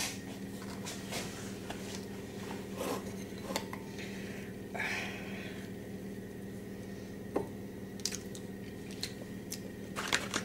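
Faint, scattered small taps and clicks of a metal teaspoon and fingers working over a glass mixing bowl, with a brief rustle about five seconds in, over a steady low hum.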